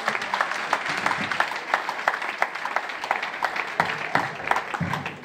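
Audience applauding: many hands clapping in a dense, irregular patter that thins out and dies down near the end.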